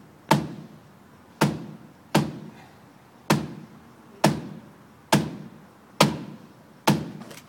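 A wine bottle held inside a Converse sneaker being struck heel-first against a concrete wall, eight sharp thuds at about one a second, each dying away quickly: the shoe method of knocking the cork out of the bottle.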